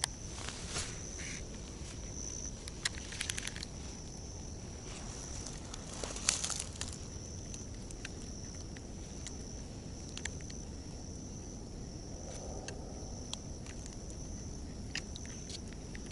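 Insects chirring in a steady, high, even drone, with scattered faint clicks and a brief louder rustle about six seconds in.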